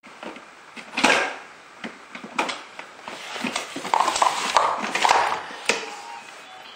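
Toy cube blocks knocking and clattering as a toddler pulls them out of a toy box and tips them onto the floor: a handful of separate knocks, the loudest about a second in, with a busier clatter in the middle.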